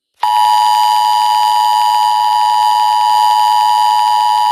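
Emergency Alert System attention signal: a loud, steady electronic alarm tone near 1 kHz that starts about a quarter of a second in and holds without a break.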